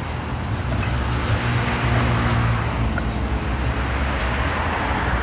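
A steady low engine drone, with a rushing noise that swells through the middle and eases near the end.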